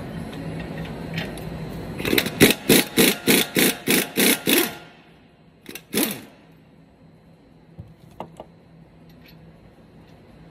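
Pneumatic air hammer firing on a truck's steering knuckle at the lower ball joint to break the joint loose. It runs in short rapid bursts, about a dozen in three seconds starting about two seconds in, then two more bursts a second later.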